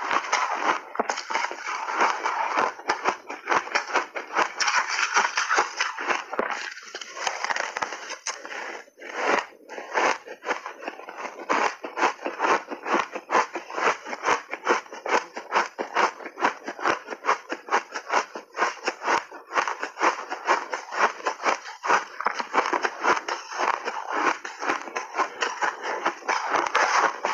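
Refrozen shaved ice being bitten and chewed, heard close up as a dense, continuous run of sharp crunches and crackles. There is a brief lull about a third of the way in.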